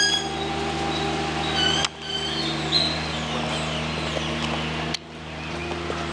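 Birds giving short, high calls a few times in the first three seconds, over a steady low hum.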